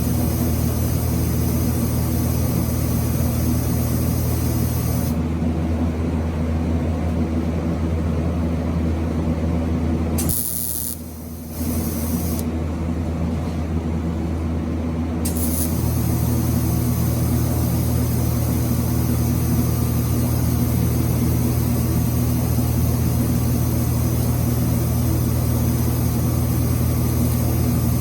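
TIG welding: a steady electric buzz and hiss from the welder and arc, with a short drop in loudness about ten seconds in.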